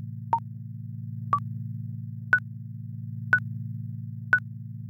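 Countdown timer sound effect: five short electronic beeps one second apart, stepping up in pitch after the first two, over a steady low synthetic hum.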